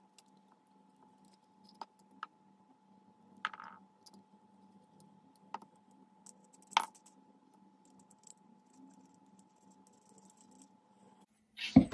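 A handful of small, sharp metal clicks and taps, spaced a second or more apart, as a hex key and small screws work against a brass nut in its aluminium holder. A faint steady hum runs underneath and stops near the end.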